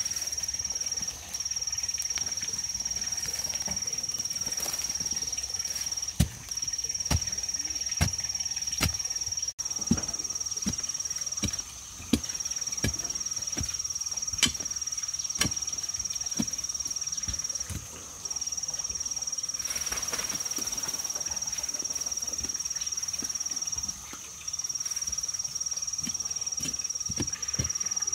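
A hoe blade chops into dry, clumpy soil in irregular strikes, about one a second. Under it runs a steady, high-pitched insect drone that breaks off briefly every five or six seconds.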